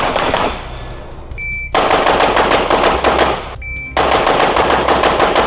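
Glock 19 pistol fired in three rapid strings of shots: a first string ending about half a second in, a second from about two seconds in, and a third from about four seconds in. A short high beep comes just before the second and the third strings.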